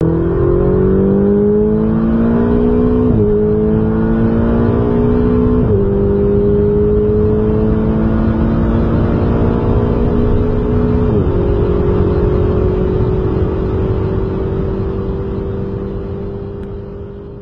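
Car engine accelerating through the gears: the engine note climbs, then drops at each of three upshifts about 3, 6 and 11 seconds in, holds steady in the last gear and fades out near the end.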